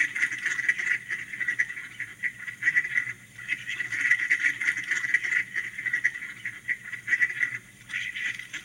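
Mallard duck quacking, a recording played back as a WAV file from an SD card by an Arduino sound-effect module: a run of rapid, closely spaced quacks with brief pauses about three seconds in and near the end.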